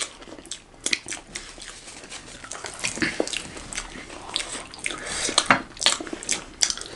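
Close-up eating sounds of two people biting and chewing fried momos and shyabhale: irregular sharp crackles and mouth smacks, busiest about five to six seconds in.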